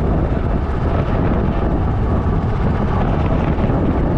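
Motorcycle riding along at a steady pace: engine and wind buffeting the action camera's microphone make a loud, even rumble.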